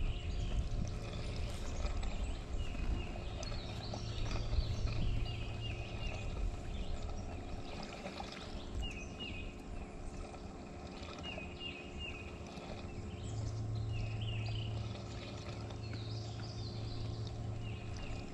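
Small birds chirping in short repeated phrases over a steady low hum.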